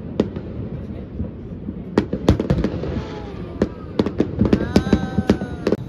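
Fireworks going off: a series of sharp bangs and crackles at irregular intervals, coming faster in the last couple of seconds.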